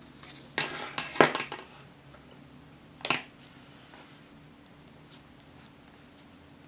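Paper being handled on a wooden desk: about a second of rustling with a few sharp clicks, then a single sharp tap about three seconds in.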